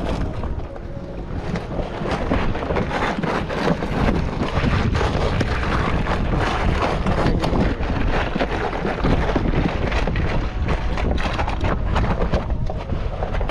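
Wind buffeting the microphone on a boat at sea, a steady rushing noise with a strong low rumble and frequent short gusty crackles.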